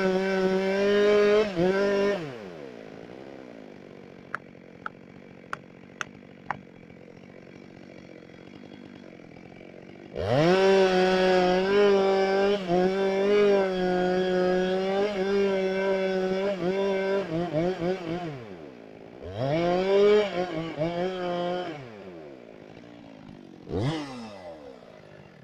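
Two-stroke chainsaw at full throttle that drops to idle, with a few sharp clicks while it idles. It is revved up again for a long stretch, then a shorter burst and a brief blip, and the engine is cut off near the end.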